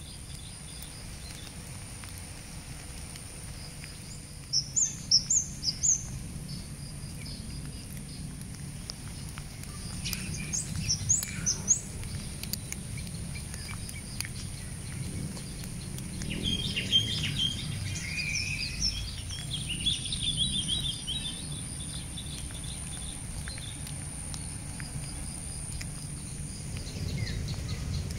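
Outdoor ambience with birds chirping in short high bursts: a quick run of four notes about four seconds in, another run around ten seconds, and busier chirping from about sixteen to twenty-one seconds. A steady thin high-pitched hum and a low rumble lie underneath.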